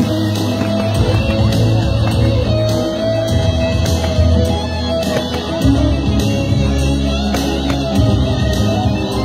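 Loud amplified music with guitar, a strong bass and a steady beat, played over a sound system.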